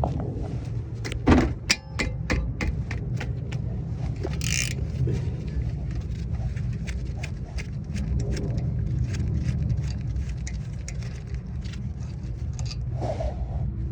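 Wrench and metal hand tools clicking and clinking on a car's brake caliper as its bolts are undone: scattered sharp clicks, a quick run of ratchet-like clicks about two seconds in, and a short hiss about four and a half seconds in, over a steady low rumble.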